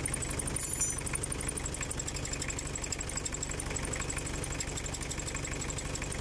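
Toyota Hilux single cab 3.0 diesel engine idling steadily with an even clatter, heard close from the open engine bay.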